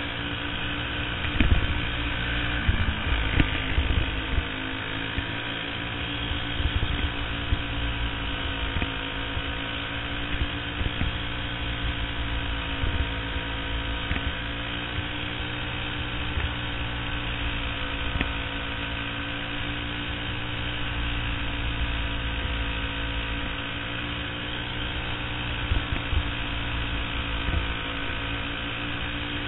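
Racing kart's single-cylinder engine running hard through a race, its pitch swaying slightly up and down through the corners, with a few sharp knocks and rattles in the first few seconds.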